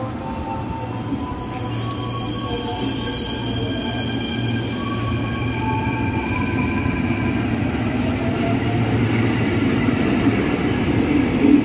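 KRL Commuter Line electric train pulling out of the station, heard from the platform beside it: a steady low hum with several thin whining tones, some sliding slightly upward, growing gradually louder as it picks up speed.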